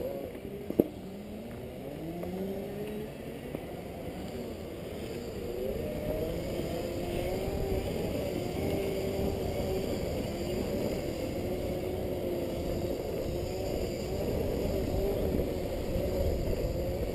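Segway personal transporter's electric drive whining, its pitch gliding up and down over the first few seconds and then holding steady as it cruises, over a low rumble. A single sharp click under a second in.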